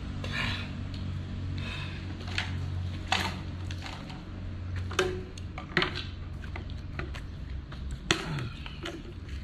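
Scattered knocks and clacks of gear being handled, with a plastic water bottle set down on the concrete floor about eight seconds in, over a steady low hum.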